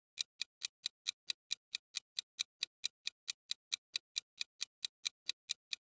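Countdown-timer sound effect: an even, clock-like ticking, about four or five ticks a second.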